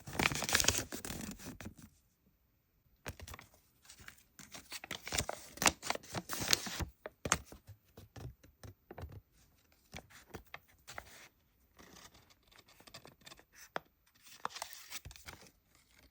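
Toy packaging being torn open and crinkled by hand, in bursts of rustling with short pauses. It is loudest in the first two seconds and again from about three to seven seconds in.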